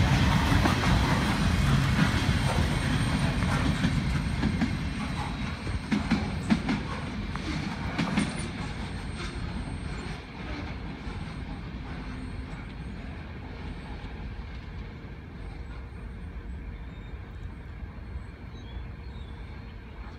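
The last cars of a Union Pacific mixed freight train rolling past, their wheels rumbling and clattering over the rails, with a few sharp clacks about six to eight seconds in. The rumble then fades steadily as the train draws away.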